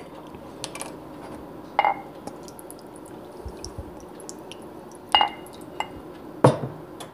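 A handful of sharp kitchenware clinks of glass and metal, some with a brief ring, the loudest near the end, over a low steady hum.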